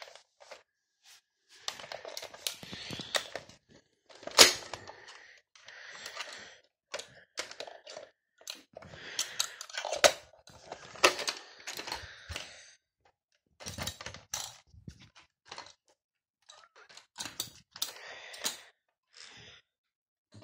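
Plastic clicks and rattles of a toy Nerf revolver blaster being handled and its rotating cylinder loaded, with rustling between the clicks. One sharp, loud click comes about four seconds in.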